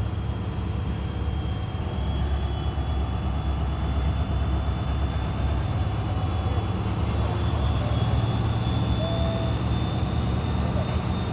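Train running: a continuous low rumble with a steady low engine tone that grows slightly louder about two seconds in, and a faint thin high squeal above it.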